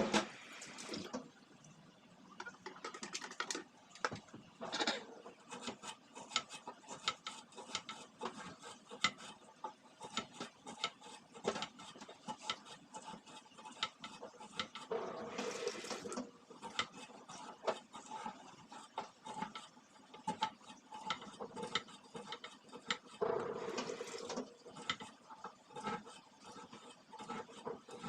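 Kitchen exhaust fan parts being handled and scrubbed at a sink: scattered knocks and clattering throughout, with two brief rushes of running water, about halfway through and again near the end.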